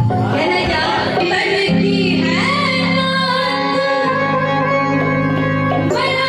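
Devotional bhajan singing with instrumental accompaniment: a singing voice over a steady held drone.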